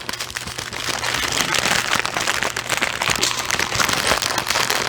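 Small plastic bags of diamond-painting drills being handled, crinkling and rustling in a dense, continuous crackle.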